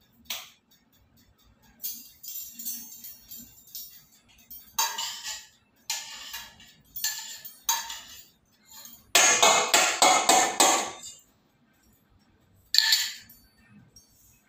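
Metal kitchen utensils clinking and scraping against stainless-steel bowls in irregular bursts, with a loud rattling clatter about nine seconds in and a single sharp clack near the end.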